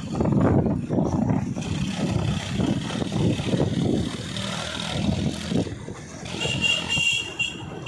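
Diesel engine of heavy earth-moving machinery running with an uneven, fluctuating rumble. About six seconds in, a high-pitched pulsing tone comes in and runs to the end.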